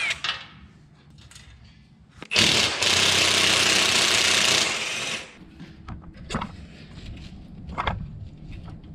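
Cordless impact driver hammering for about three seconds, starting a couple of seconds in, as it works a bolt on a steel floor plate. A few short sharp knocks follow.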